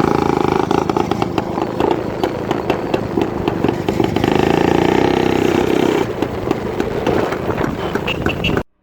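Royal Enfield Crusader 175 cc single-cylinder two-stroke motorcycle engine running, with a rapid crackling exhaust and a louder stretch in the middle. The sound cuts off suddenly near the end.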